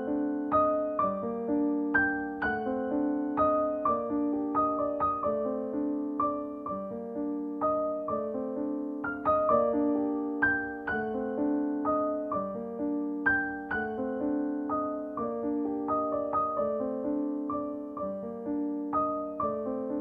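Gentle solo piano background music, a steady stream of single struck notes that ring and fade.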